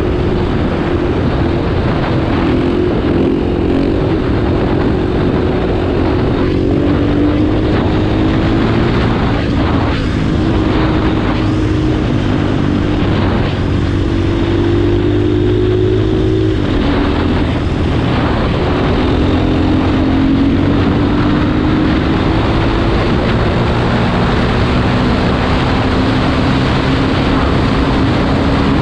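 2017 KTM 500 dirt bike's single-cylinder four-stroke engine running at road speed under the rider, its pitch shifting several times as the throttle and gears change. The pitch drops sharply a little past halfway, then climbs slowly. A steady rush of wind and road noise runs underneath.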